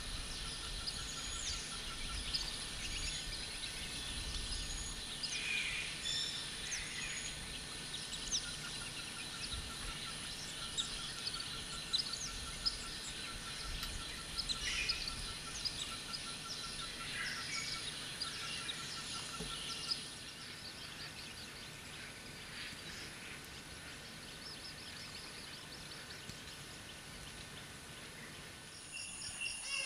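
Rainforest ambience: many birds calling and chirping over a steady high insect drone, with a rapid pulsing trill repeating through the first two-thirds. The sound drops a little in level about two-thirds of the way through.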